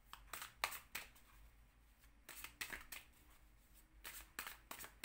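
A deck of Lenormand cards being shuffled by hand, heard as several short bursts of quick card clicks.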